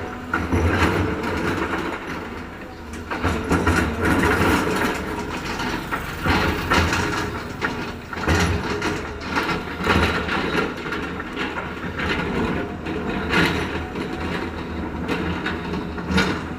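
Heavy road-construction machinery at work: a diesel engine running steadily under irregular metal clanks and knocks.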